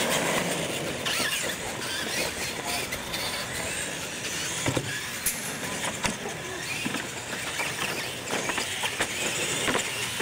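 Radio-controlled monster trucks racing on concrete: motors and gears whining and tyres scrubbing, with several sharp knocks as the trucks hit ramps and land from jumps.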